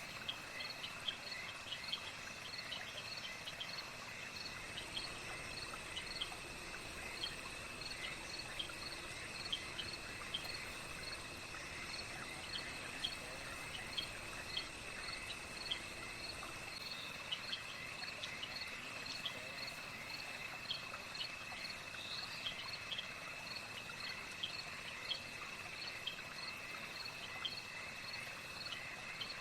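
Night insect chorus of crickets: a continuous high trill with regular short chirps repeating about once or twice a second. A thinner, very high steady whine joins from about five seconds in and stops about halfway through.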